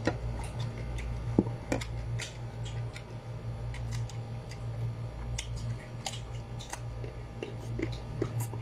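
Crisp bites and chewing of sour unripe mango slices, a run of irregular sharp crunches and clicks, with a steady low hum beneath.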